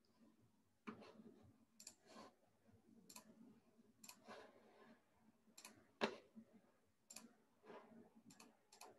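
Faint, irregular clicking of a computer mouse and keyboard being worked, a dozen or so sharp clicks spread unevenly, with one louder click about six seconds in.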